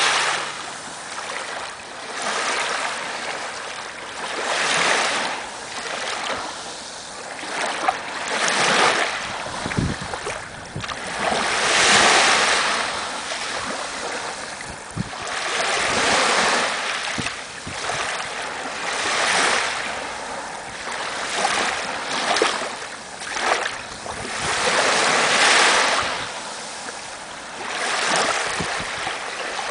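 Small waves lapping on a sandy shore, each swash rising into a foamy hiss and draining away, a new one every few seconds.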